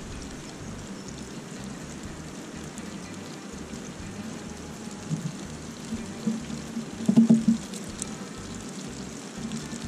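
Steady sizzling hiss of food frying in a pan on a gas camp stove, with a short clatter of utensils about seven seconds in.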